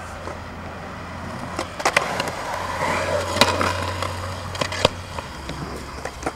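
Skateboard rolling, its wheel noise swelling for a few seconds, with several sharp clacks of the board and trucks. The loudest clack comes about three and a half seconds in.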